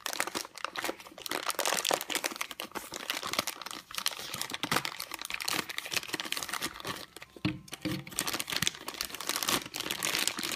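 Clear plastic packaging bag crinkling as hands unwrap and handle the plastic toy parts inside, a continuous stream of small crackles.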